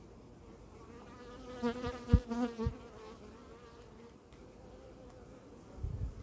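Honeybees buzzing over an open hive, with one bee flying close past with a louder, wavering buzz about two seconds in. Two short low thumps come during that pass, and a low rumble begins near the end.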